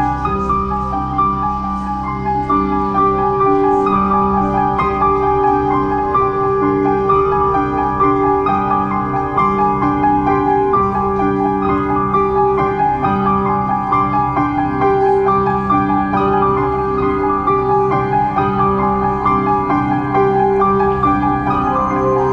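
Background music: a steady instrumental piece led by piano.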